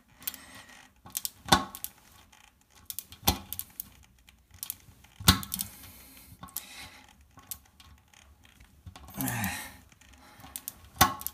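Hand screwdriver tightening the screw in a toilet seat's hinge post: scattered light clicks with a few sharp knocks about every two seconds as the driver is turned and regripped.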